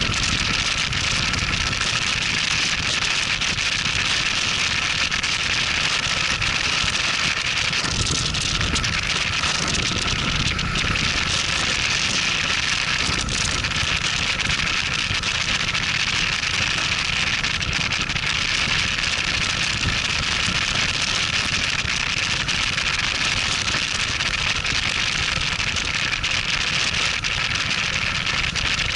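Cruiser motorcycle under way: steady wind rush over the microphone with the engine's low rumble underneath.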